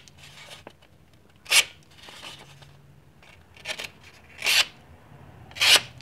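Freshly sharpened spey blade of a stockman pocket knife slicing through printer paper: about five short hissing slicing strokes, each a fraction of a second. The strokes are the paper test of the blade's edge, which cuts cleanly.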